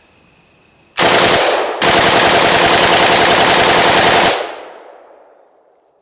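Egyptian Maadi AK-47 rifle in 7.62×39mm firing rapidly in two strings: a short one about a second in, then after a brief pause a longer string of about two and a half seconds, its echo trailing off afterwards.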